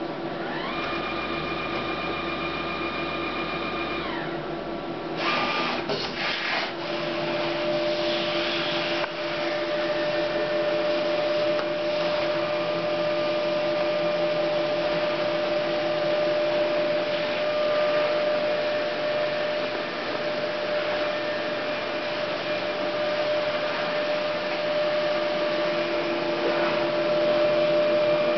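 Memjet SpeedStar3000 inkjet label printer running a print job. While the job is preparing, a motor whine rises in pitch, holds, and falls away. A few clunks follow about five to six seconds in, and then there is a steady whirring hum as the label roll feeds through and prints continuously.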